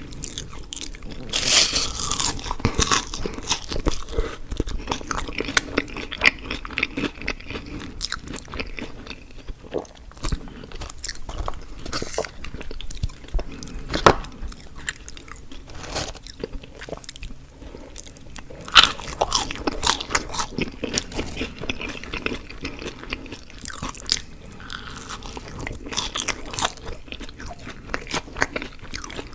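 Close-miked mouth sounds of a person eating: biting and chewing as irregular crisp clicks, loudest about two seconds in and again about nineteen seconds in.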